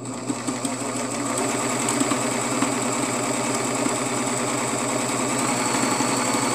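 Serger (overlock sewing machine) stitching a seam at a steady speed under the foot pedal: a fast, even mechanical rattle of needles and loopers that builds up over the first second or so and then holds steady.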